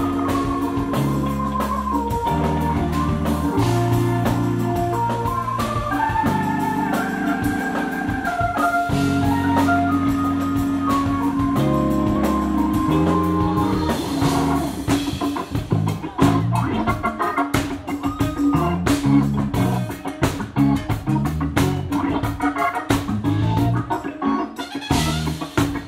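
Live jazz-funk band playing: tenor saxophone and trumpets over an organ-toned keyboard, electric bass and drums. Held chords and a melody line give way about halfway through to choppy, staccato playing over busy drums.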